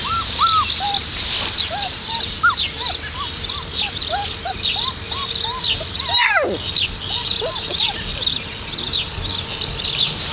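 Four-week-old Alaskan Malamute puppies whimpering and yipping: a run of short, high, rise-and-fall cries, with one longer whine falling in pitch about six seconds in.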